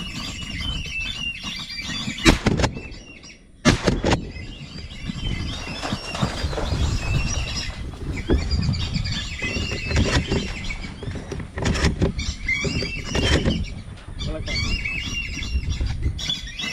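A flock of whistling ducks (wisi wisi) calling, many squealing whistles overlapping without a break, over a steady low rumble. A few sharp knocks cut through, the loudest about two and four seconds in.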